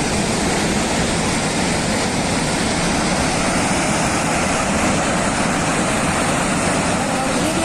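Loud, steady rushing of a floodwater torrent, an even noise with no breaks.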